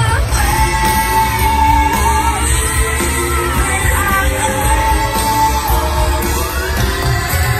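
Stage-show song: singing with long held notes and vibrato over a heavy bass backing track.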